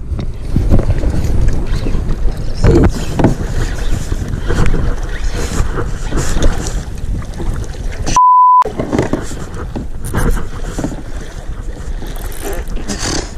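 Wind buffeting the camera microphone, with water splashing around the kayak and knocks from handling the rod as the spinning reel is cranked. About eight seconds in, a short, high, steady beep replaces all other sound for under half a second, like a censor bleep.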